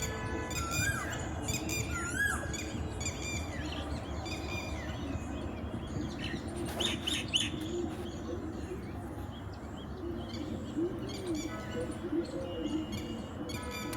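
Several wild birds chirping and calling in a morning chorus. Short rising-and-falling whistled notes repeat through the first couple of seconds, and scattered chirps follow, over steady low background noise.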